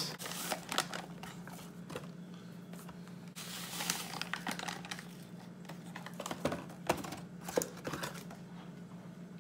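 Paper pouches of Jiffy corn muffin mix crinkling and rustling as they are handled and emptied into a glass mixing bowl, with scattered small clicks and a soft rush of dry mix pouring about four seconds in. A steady low hum runs underneath.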